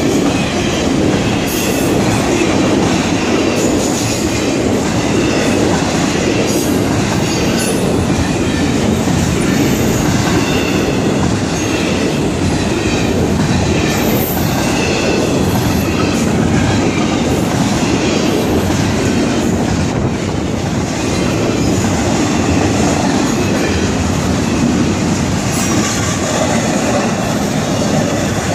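Long intermodal freight train of container and trailer cars rolling steadily past a grade crossing. The wheels make a loud, continuous rumble on the rails.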